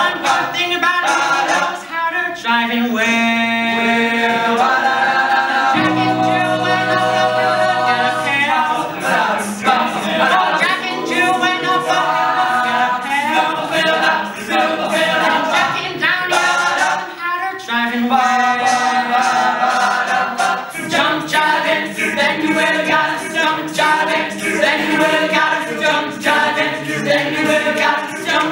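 A teenage male a cappella group singing an uptempo swing number: a lead singer over backing voices that hold long, sustained chords.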